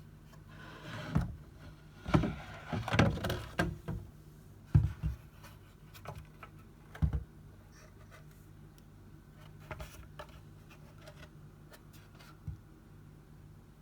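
Knocks, clatters and scrapes of a tumble dryer's condenser unit being handled and turned over after removal. They come in a busy cluster over the first few seconds, then one sharp knock and a few softer taps further apart.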